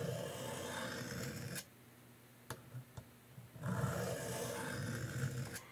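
Knife blade drawn across a 300-grit diamond sharpening plate wetted with soapy water: two long strokes of about two seconds each, with two light clicks between them.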